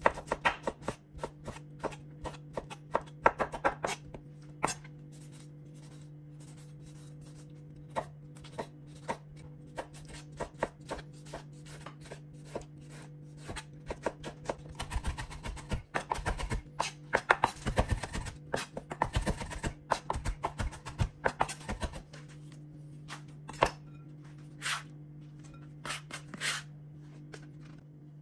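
Chef's knife dicing tomatoes on a wooden cutting board: repeated sharp knocks of the blade on the board, coming thicker and faster in the middle, over a steady low hum.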